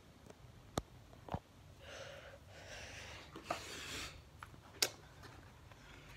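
Faint handling noise of a phone camera held close: a few sharp clicks and knocks, with about two seconds of breathy hiss in the middle.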